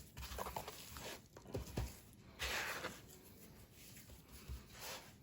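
Faint kitchen handling sounds from working seasoning onto a raw brisket: a few soft knocks and taps in the first two seconds, then a short rustling scrape about two and a half seconds in and a smaller one near the end.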